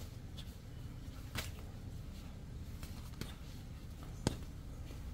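Boxing gloves smacking against focus mitts during pad work: a few separate sharp smacks a second or more apart, the loudest near the end, over a low steady rumble.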